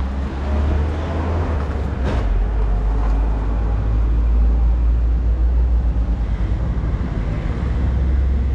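Mahindra Scorpio SUV's engine idling with a steady low rumble, heard from beneath the vehicle near the exhaust.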